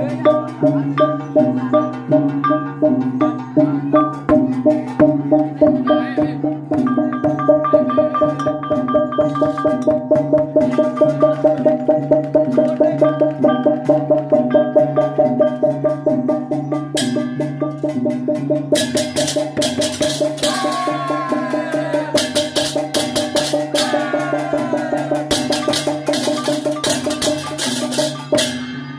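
Balinese gamelan of hand-held bronze gongs and cymbals (ceng-ceng) beating a fast, even pulse for a barong. The cymbal clashes grow thick from about seventeen seconds in, and the music breaks off near the end.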